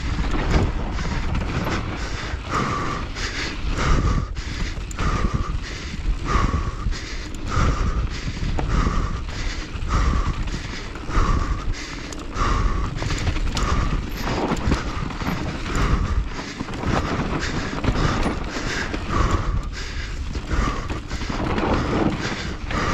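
Mountain bike ridden fast down a rough dirt trail: wind rushing over the microphone, with tyres and frame rattling and knocking over the ground. A short sound repeats about once a second.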